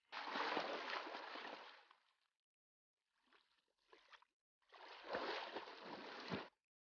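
Water splashing, as a person swims through lake water. It comes in two bursts of about two seconds each, with fainter splashes between them.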